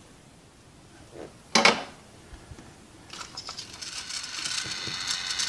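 Small tools and parts handled on a workbench: a sharp knock about a second and a half in, then a growing run of rattles and clicks with a steady high whine under it in the second half.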